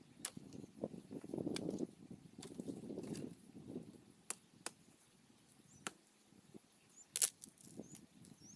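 Dry twigs and sticks snapping and cracking amid rustling of dry leaves and brush, in a series of sharp separate cracks, the loudest a double crack near the end, as of someone moving through undergrowth gathering firewood. Faint bird chirps near the end.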